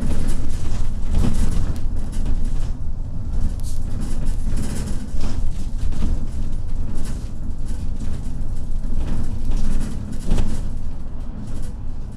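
Cabin noise of a MAZ-215.069 articulated bus driving along: a steady low rumble of engine and road noise, with now and then a short rattle or clatter.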